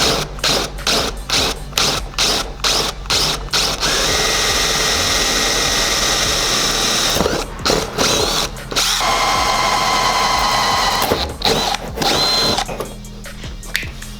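Power drill cutting into a carbon fiber hood. It starts in short trigger bursts, about two a second, then runs steadily with a few brief stops.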